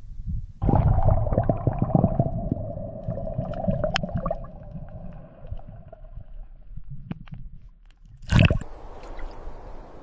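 Water gurgling and sloshing in a hole drilled through lake ice, with a sustained tone over it for the first few seconds. A short, louder noise comes about eight seconds in.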